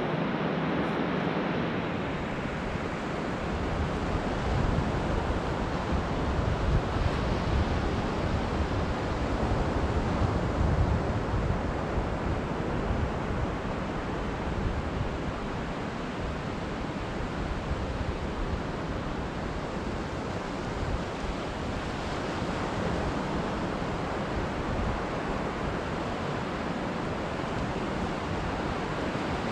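Sea surf washing steadily on the shore, with wind buffeting the microphone as a gusty rumble underneath.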